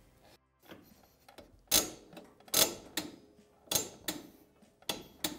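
A ratcheting torque wrench clicking as it tightens the primary drive clutch bolt of a Polaris RZR XP 900, about five sharp clicks roughly a second apart.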